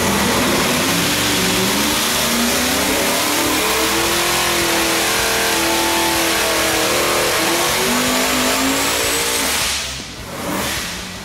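ProCharger F1X-supercharged LSX V8 on an engine dyno making a wide-open-throttle power pull at about 30 pounds of boost. The revs climb steadily from about 1,200 rpm to high rpm, then fall back, and the engine drops to idle about ten seconds in.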